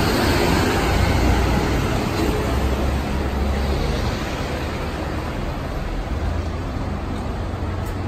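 Road traffic on a busy city street: cars and buses passing close by, with a heavier low engine rumble over the first half that eases off after about four seconds.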